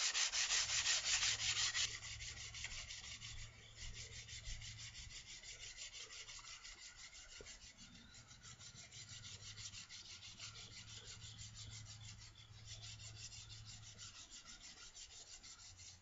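Sargent block plane's sole being rubbed back and forth on sandpaper wetted with window cleaner, a rapid, even scraping rhythm while the sole is flattened. The strokes are louder for about the first two seconds, then lighter.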